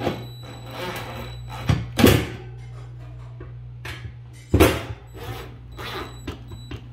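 Cordless DeWalt drill-driver driving the screws into a wall heater's face cover, its motor whirring in short runs with a few sharp knocks, over a steady low hum that cuts off suddenly at the end.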